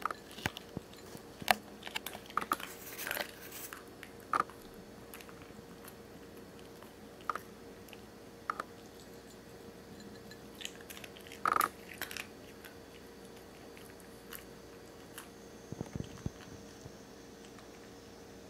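Norfolk terrier crunching dry kibble from a bowl: irregular crunches, thickest in the first few seconds, then scattered, with a louder one a little past halfway.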